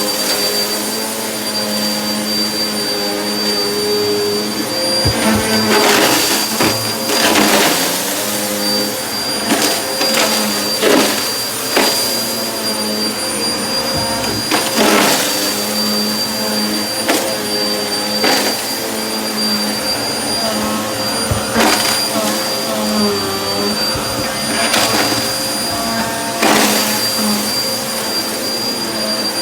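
Vacuum cleaner running on carpet with a steady high whine, broken every second or two by short crunching, crackling bursts as it picks up carpet powder and debris.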